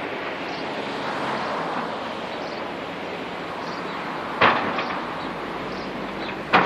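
Demolition excavators working: a steady rumble of machinery, with two sharp bangs, one about four and a half seconds in and one at the very end.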